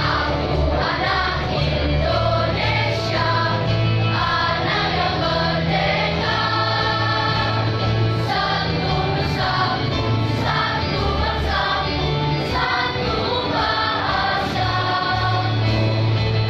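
A school choir of children singing a song together, with instrumental accompaniment carrying sustained low bass notes that change every second or two.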